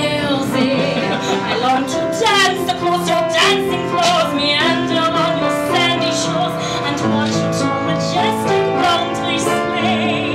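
A woman singing a musical-theatre song with vibrato, accompanied by a grand piano.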